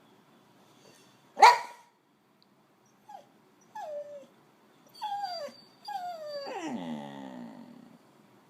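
Boxer dog vocalising: one sharp, loud bark about a second and a half in, then a run of short calls that each slide down in pitch, ending in a longer drawn-out call that falls from high to low, the dog 'talking'.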